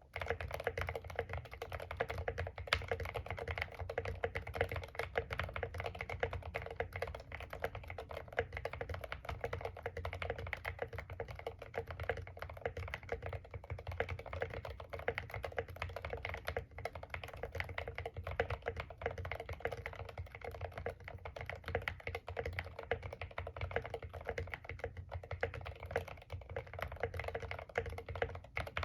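Continuous fast typing on a mechanical keyboard with Akko Rosewood switches and Drop MT3 keycaps, a dense stream of key clacks with no pauses. The case is an Idobao ID67 with an acrylic bottom, fully foamed.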